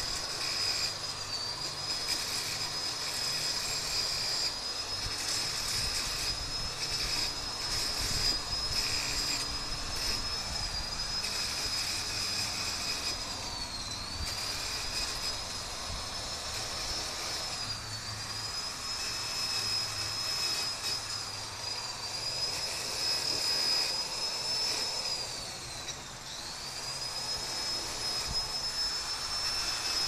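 Electric angle grinder running with a high, steady whine over rough grinding noise as it grinds metal. Its pitch dips and recovers a few times as the disc is pressed harder into the work and slows under load, most deeply about halfway through and again near the end.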